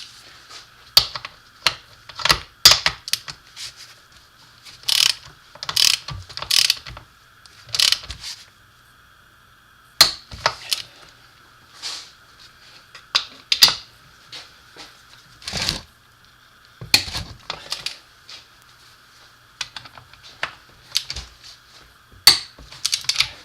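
Click-type torque wrench ratcheting and clicking as the transfer case bolts are run down to their preset torque: irregular clusters of sharp metallic clicks over a faint steady hum.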